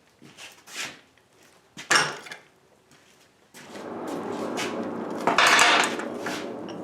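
Steel strap and tools clanking and scraping, with the sharpest clank about two seconds in. A steady rushing noise starts about halfway through and swells briefly near the end.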